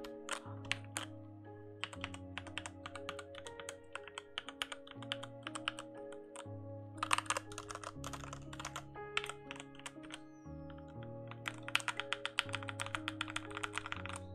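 Typing on a SteelSeries Apex 7 TKL mechanical keyboard with linear red switches: a rapid patter of key presses with no click, the sound coming from the keys hitting the bottom. Denser runs of fast typing come about seven seconds in and again near the end.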